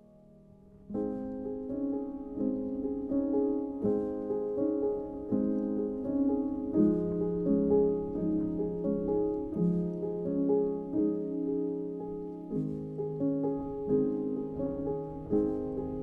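Background piano music; the notes start about a second in.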